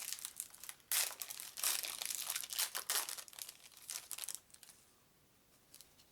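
A trading card pack's wrapper being torn open and crinkled: a run of crackling rustles that dies away after about four and a half seconds.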